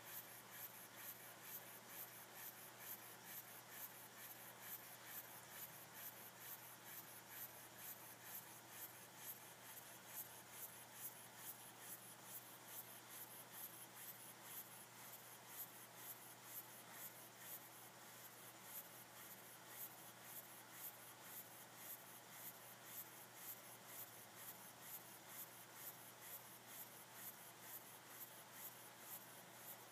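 Small single-cylinder Elderberry model mill engine running slowly and steadily, with a soft, even beat about twice a second.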